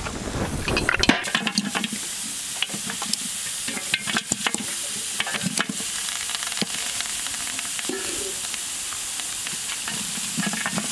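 Cut goat trotters tipped into a large aluminium pot and sizzling as a slotted spoon stirs and scrapes them, with a steady hiss and many sharp clicks of bone and metal against the pot; the clatter is densest in the first second.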